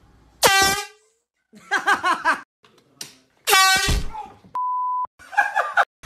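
A handheld air horn gives two short, loud blasts, about half a second in and again at about three and a half seconds, with a person's voice shouting between them. Near the end comes a flat half-second bleep over a word, then more voice.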